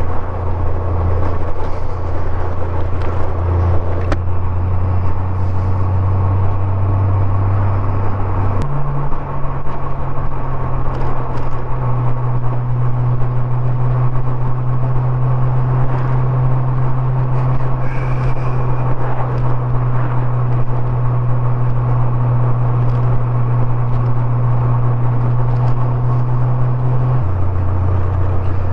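1989 motorcycle's engine running at steady cruise, heard through a helmet mic, with wind and road noise. The engine note steps up in pitch about nine seconds in, holds, and drops back near the end.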